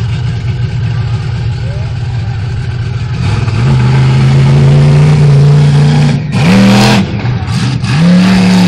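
A monster truck's V8 engine idles, then opens up about three seconds in and is held at high revs. Near the end come two hard blips of throttle, each a rising rev, as the truck climbs onto a row of scrap cars.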